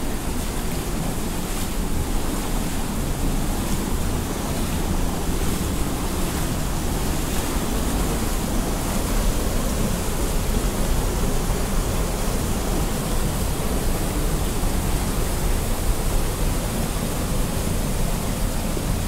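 Shallow mountain stream rushing over rocks, with a small waterfall spilling into it: a steady rushing of water.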